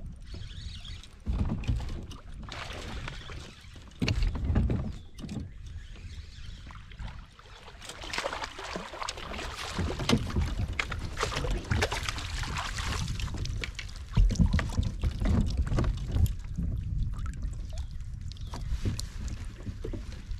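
Fishing from a plastic kayak: irregular handling noise of the rod, reel and gear, with small knocks and water against the hull. Sudden low thumps come about a second, four seconds and fourteen seconds in.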